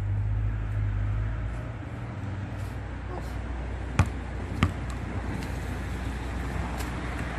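A basketball bounced twice on a rubber-tiled court, about four seconds in and again just after, over a steady low outdoor hum.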